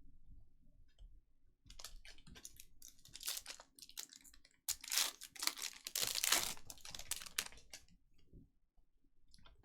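Trading card packaging tearing and crinkling as a pack is opened and the cards are handled, in a run of rustles that is loudest about five to seven seconds in.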